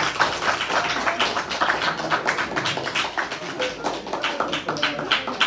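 A small audience clapping: a dense round of applause that gradually fades toward the end.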